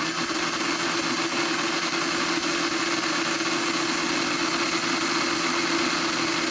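Electric drill running steadily at one constant pitch, spinning to twist a doubled strand of 26-gauge Kanthal wire held under tension with pliers.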